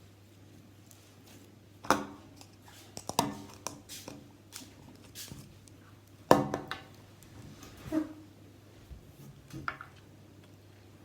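Irregular clinks and knocks of utensils against containers while slime is being made or handled, several knocks with a brief ring, the loudest about two seconds and six seconds in, over a steady low hum.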